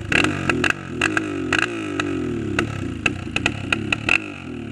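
Single-cylinder trail motorcycle engine revved in repeated blips, about two a second, each rev falling away, with sharp knocks and clatter in between.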